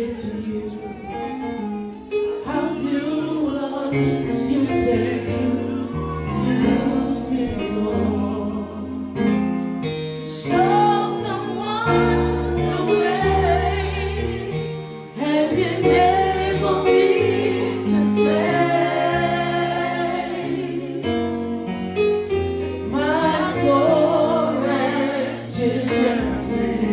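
Gospel music: singing over instrumental accompaniment with held bass notes that change every second or two.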